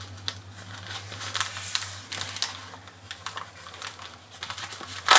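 Light clicks and rustling as a saw's nylon sheath and its adjustable belt loop are handled, ending in a louder rasping burst.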